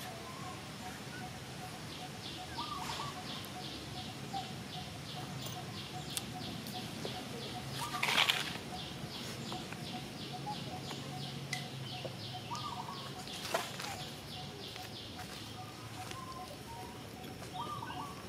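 Outdoor ambience with a high, even pulsing chirp repeating about three times a second, a few short bird calls, and a brief rustle about eight seconds in.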